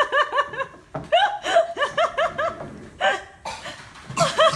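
High-pitched laughter in quick repeated ha-ha bursts, several runs of it with short breaks between them and a last run near the end.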